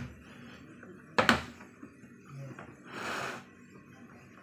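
Latch of a hard plastic drill carrying case snapping open with one sharp click a little over a second in, then a brief rustling scrape around three seconds in as the case is opened.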